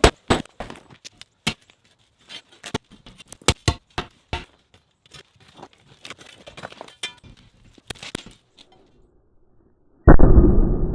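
Concrete being broken up with a sledgehammer and spud bar: rapid, irregular sharp cracks and clinks of breaking concrete and chunks knocking together, stopping a couple of seconds before the end. Near the end a loud, muffled low rumble cuts in suddenly.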